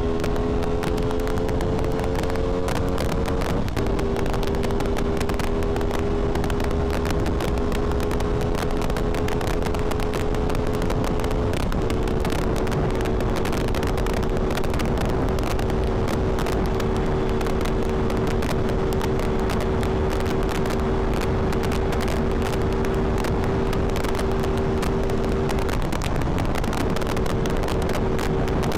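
Aprilia Tuono 660's parallel-twin engine at full throttle on a top-speed run above 200 km/h, under heavy wind rush on the rider's microphone. The engine note climbs slightly, then breaks off briefly about four seconds in and again near twelve seconds, as the rider shifts up. After each break it comes back a little lower and then holds nearly steady, with one more brief dip near the end.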